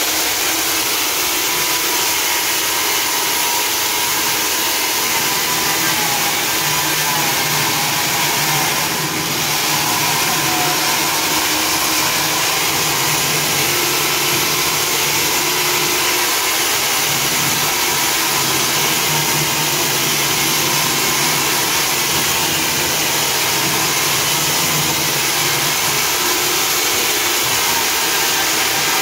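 Handheld diamond chain saw cutting into a wall, its motor running steadily under load with the chain grinding through the masonry, easing slightly about nine seconds in.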